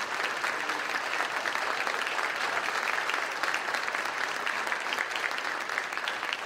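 Audience applauding: steady clapping from many hands at once.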